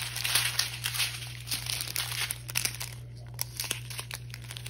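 Clear plastic bags of resin diamond-painting drills crinkling as they are handled, in irregular bursts of crackle that are busiest in the first second and a half and thin out about three seconds in.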